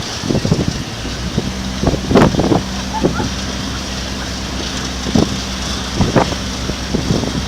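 A boat's engine drones steadily and low, with several short, irregular thumps and gusts of wind noise on the microphone.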